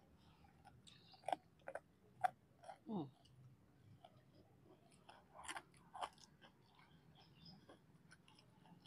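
Close-up chewing of crispy fried fritters dipped in sambal, with several short, sharp crunches in the first three seconds and two more at about five and six seconds.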